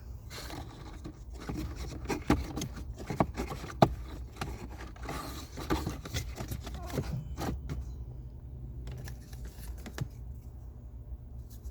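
Plastic scraping, rustling and irregular clicks as a new cabin air filter is handled and slid into its plastic housing, with a sharp click about four seconds in and quieter handling later on. A steady low hum runs underneath.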